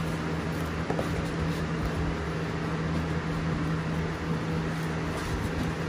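A steady machine hum with an even hiss, unchanging throughout, with a few faint clicks over it.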